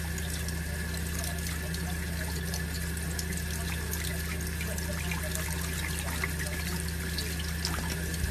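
Kitchen tap running in a steady stream, splashing into cupped hands and a stainless-steel sink while a budgerigar bathes under it, with a steady low hum underneath.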